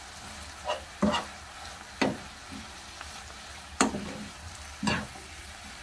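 Shishito peppers and dried anchovies with soy sauce and corn syrup sizzling softly in a non-stick frying pan while being stirred with a metal spoon. About five sharp clicks of the spoon against the pan break the steady sizzle.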